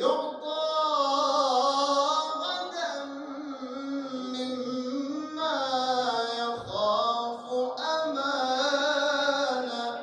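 A man's solo voice chanting a religious praise song (lofzang) into a microphone, in long drawn-out melodic phrases with held, wavering notes.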